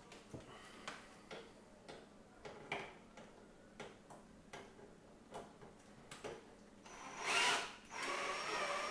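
Light, irregular clicks and taps of screws being fitted into a monitor's VESA mounting holes against a wall bracket. Near the end comes a short loud rush of noise, then a whirring sound with a wavering pitch.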